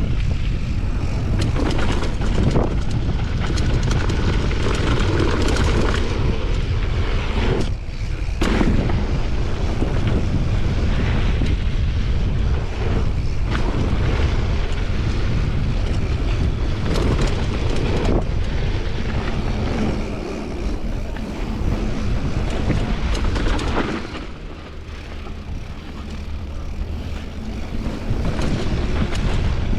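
Wind buffeting the microphone and tyres rumbling over a rough trail as a mountain bike descends, with rattles and knocks from bumps. It dips for a few seconds about three-quarters through, then picks up again.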